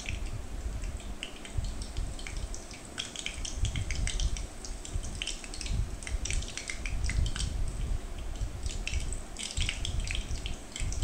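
Hot oil sizzling with dense, irregular crackling around urad dal vadas deep-frying in a pan, the turned fritters browning on their second side, over a low rumble.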